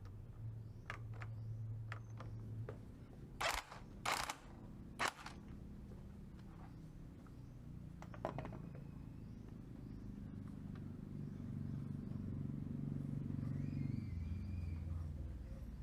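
A series of sharp clicks and knocks, typical of tools and metal parts being handled during motorcycle clutch work, loudest a few seconds in. From about halfway, a low engine hum builds and then drops away near the end, like a passing vehicle.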